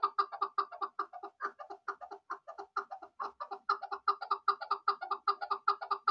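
Chukar partridge calling: a fast, unbroken run of short 'chuk' notes, about six to seven a second, spacing out a little midway.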